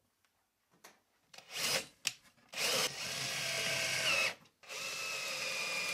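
Cordless drill-driver driving screws through a small metal ball-stud bracket into a wooden cabinet side. It gives a short blip about a second and a half in, then two steady runs of about two seconds each with a brief stop between them.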